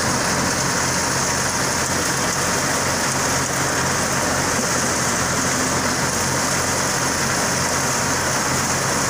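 Tractor-driven thresher running while chickpea plants are fed into it: a steady, loud machine noise with a low engine hum under a dense hiss of threshing.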